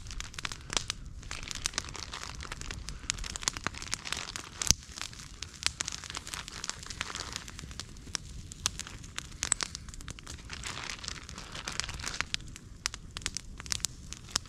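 Wood campfire crackling and popping, with a plastic package crinkling as sausages are laid on the wire grill over the flames. One pop stands out about five seconds in.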